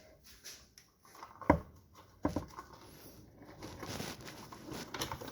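Scattered light clicks and knocks of the oil filter cap and new cartridge filter being handled and worked back into place, the sharpest about a second and a half in.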